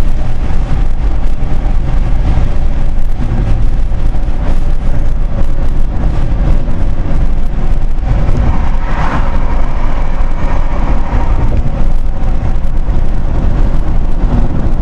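Road noise inside a moving car: a steady low rumble of tyres and engine, swelling briefly about nine seconds in.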